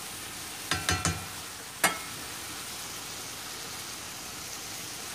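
Marinated chicken sizzling steadily in a hot cast-iron frying pan over a high gas flame. A few short, light metallic clinks come about a second in and once more just before two seconds.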